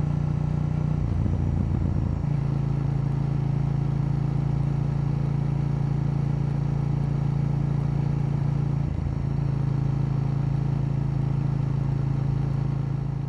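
KTM 890 Duke L's parallel-twin engine running at steady revs. Its pitch briefly wavers about a second or two in and again around nine seconds in.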